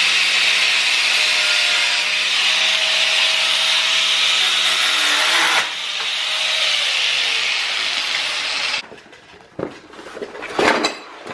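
Corded angle grinder cutting metal, a loud steady grinding noise. About halfway through it eases off and the motor's pitch falls, and the noise stops a couple of seconds before the end. It is followed by rustling and clicks of hands in a cardboard parts box.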